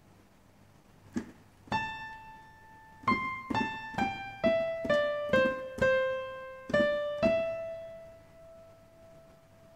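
Piano playing a ten-note melodic phrase, la–do–la–sol–mi–re–do, do–re–mi, at a moderate pace. The last note is held and dies away.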